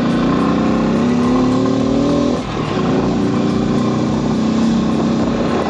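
A vehicle's engine pulling under acceleration, its pitch rising, then a brief dip in pitch and level about two and a half seconds in before it picks up and climbs again.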